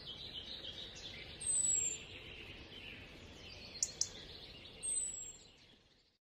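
Birds calling over a low outdoor hiss: a high whistle falling in pitch, heard twice about three seconds apart, over busier chirping, with two sharp clicks just before the four-second mark. The sound fades out about six seconds in.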